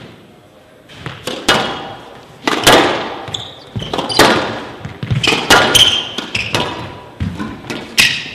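Squash rally: a series of sharp echoing smacks as the ball is struck by the rackets and hits the walls of a glass court, starting about a second in, with a few short squeaks between hits.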